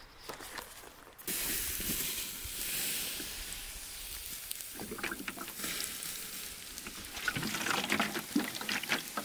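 Water poured from a plastic jug onto campfire embers, hissing and sizzling as it douses the fire. It starts suddenly about a second in, with pops and crackles in the second half.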